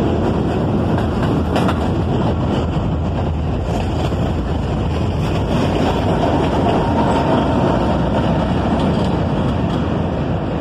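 Train of R32 subway cars, a refuse-train car at the rear, rolling past on elevated track: a steady rumble and clatter of wheels on the rails. A faint, steady high tone comes in over the last few seconds as the train pulls away.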